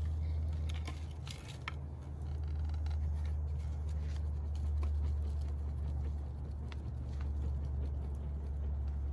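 A steady low rumble with scattered small crackles and clicks from a wood fire being fanned with a handheld woven fan.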